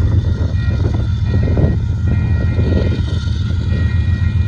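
Diesel locomotive engines running with a steady, heavy low rumble.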